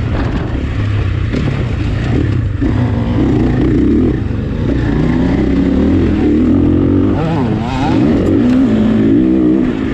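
A dirt bike's engine, heard from on board, revving hard and changing pitch as it rides a dirt track. About seven and a half seconds in, the revs drop sharply and climb again.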